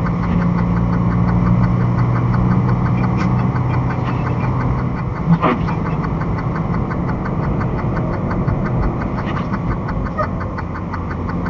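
Inside a semi-truck's cab at highway speed: the diesel engine drones steadily under road and wind noise. About halfway through there is a brief sharp click, and the engine's drone eases off after it.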